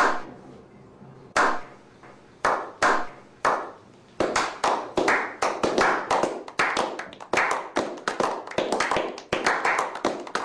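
Slow clap by a small group of men: single hand claps spaced about a second apart, then from about four seconds in more hands join and the clapping gets denser and faster.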